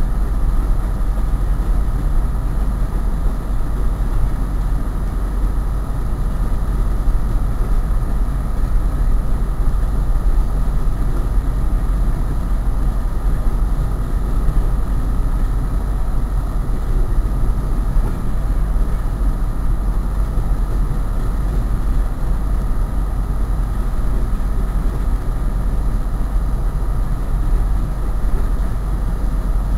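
Diesel locomotive running steadily, a constant low rumble with a steady hum above it.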